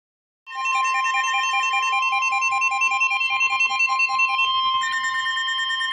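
Weather-alert attention signal: a loud steady single-pitch warning tone, typical of the NOAA Weather Radio alarm tone, starting about half a second in. A fast electronic beeping of about four beeps a second sounds over it and shifts to a different pitch pattern about five seconds in.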